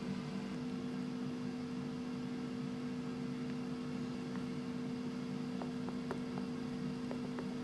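Air fryer running as it preheats: a steady appliance hum with two held low tones. A few light clicks come near the end as the mixture is stirred in a glass bowl.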